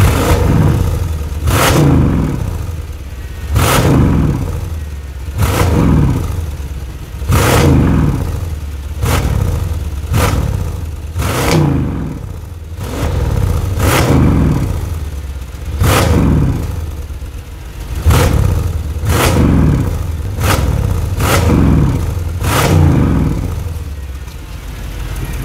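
Mercedes S63 AMG Coupe's twin-turbo V8 through an aftermarket sport exhaust, stationary, revved in about fifteen short throttle blips. Each blip starts sharply and dies away as the revs fall back toward idle.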